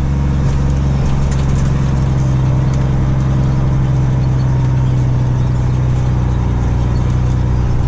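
Diesel semi truck engine running steadily at a low, even speed, with no change in pitch.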